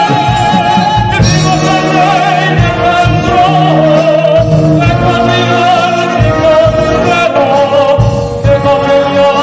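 A wind band playing with a solo singer over it, who holds long notes with vibrato; the melody line shifts pitch a little about a second in and again near the middle.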